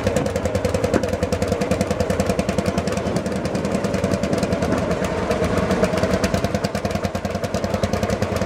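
Two KL Bulldog single-cylinder hot-bulb two-stroke tractor engines running together with a fast, even exhaust beat as the coupled rig drives along.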